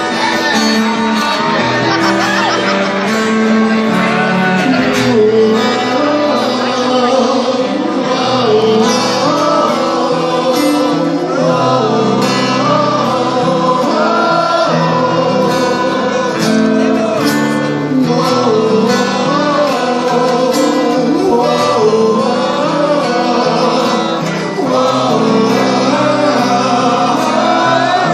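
Live band music: a man singing over guitars and a full band, loud and continuous.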